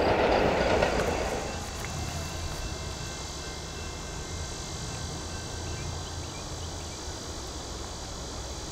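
The last of a passing freight train's noise dying away in the first second or so, leaving steady insect chirring over a low background rumble.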